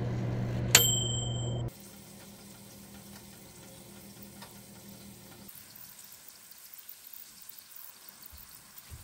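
Combination microwave oven running with a steady electric hum, with a single electronic beep about a second in. The hum cuts off abruptly after under two seconds, leaving a faint hiss with light ticking.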